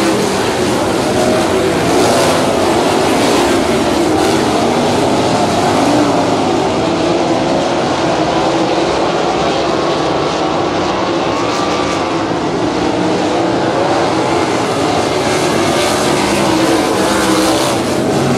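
A field of 360 sprint cars racing on a dirt oval, their V8 engines running hard together, the engine notes rising and falling as the cars go through the turns.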